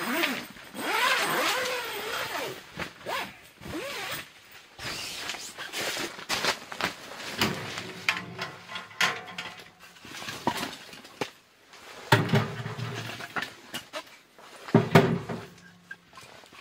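A tent door zipper pulled in the first few seconds, then firewood clattering as split logs are handled and loaded into the firebox of a Caminus M steel wood stove, with two heavier thuds, about 12 and 15 seconds in, as logs drop in.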